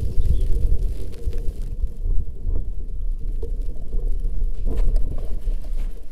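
A bicycle being ridden, heard from the bike itself: a steady low rumble of rolling and wind on the microphone, with scattered clicks and rattles. The higher hiss drops away about two seconds in while the rumble carries on.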